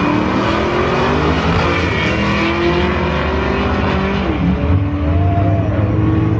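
Two drag-racing cars launching and accelerating hard down the strip, their engine pitch climbing and dropping back at gear changes about two and a half and four seconds in.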